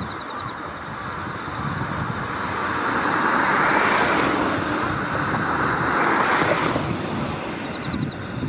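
A road vehicle passing: tyre and engine noise swells for a few seconds in the middle, then fades away.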